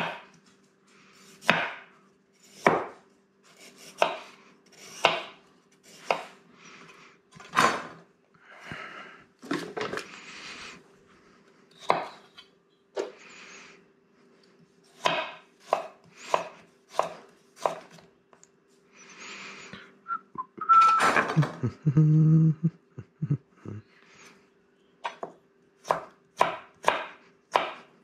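Chef's knife chopping a carrot on a wooden cutting board: sharp knocks of the blade on the board, roughly one a second with a few quicker runs. A louder, lower-pitched burst comes about three quarters of the way in, and a faint steady hum runs underneath.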